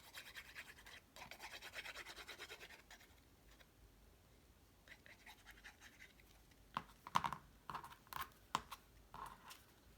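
Cardstock being rubbed and pressed down by hand, a quick run of scratchy strokes for the first three seconds, then a few sharp paper taps and rustles near the end.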